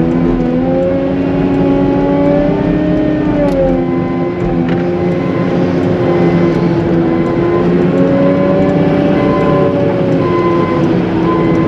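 CAT 906M compact wheel loader's diesel engine working under load as it pushes heavy wet slush, its pitch dropping a few seconds in and climbing again later. A high, broken beeping tone comes in near the end.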